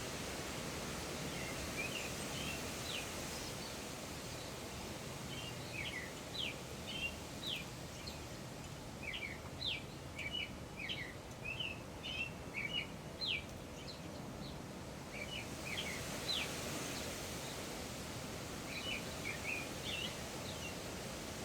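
Birds chirping in scattered clusters of short, quick, high chirps over a steady outdoor background noise.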